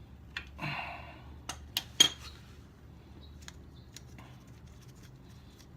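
Scattered metal clinks and taps of a wrench working a motorcycle's oil drain plug loose, the loudest about two seconds in, with a short scrape near the start.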